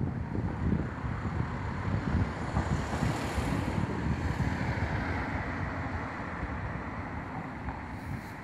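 Wind buffeting the microphone in uneven gusts, under a steady rushing noise that swells about three seconds in and eases off toward the end.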